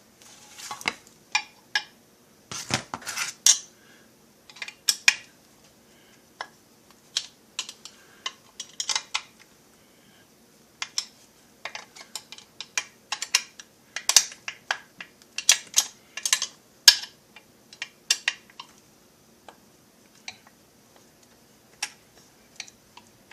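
Irregular metallic clicks and clinks of tools and parts being handled on a chainsaw crankcase, as a part is fitted into its seat and the screw holes are lined up.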